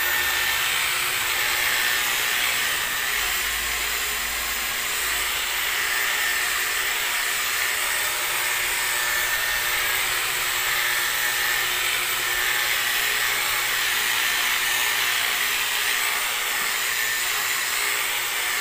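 Handheld electric car polisher running steadily with a faint high whine, its foam pad buffing rubbing compound into a pickup's painted body panel.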